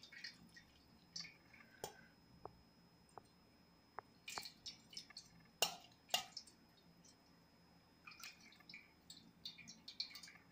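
Water poured slowly from a small metal pot, dripping and splashing faintly in short irregular bursts onto a plate, with a few light clicks.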